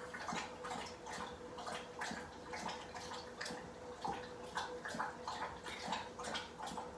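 A dog lapping water thirstily, in quick, irregular laps several times a second.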